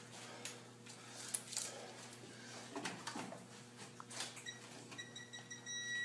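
Digital torque tool beeping while an ARP head stud is pulled up to torque: a run of quick high beeps about four and a half seconds in that turns into a steady tone near the end. A few faint clicks and knocks of the wrench and tools come before it.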